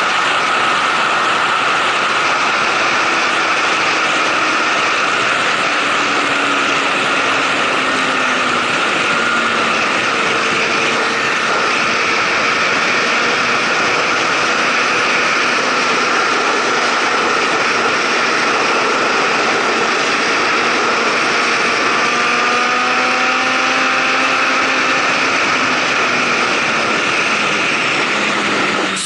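Motorcycle at highway speed: loud steady wind rush over the microphone, with the bike's engine faintly heard under it. The engine pitch falls over the first several seconds as the bike slows from about 180 to 130 km/h, then climbs again in the second half as it speeds back up.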